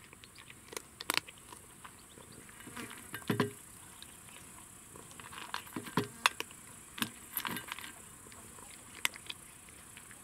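Cat crunching dry kibble from a metal bowl: irregular crisp crunches and clicks, with a couple of duller knocks against the bowl. The chewing stops near the end.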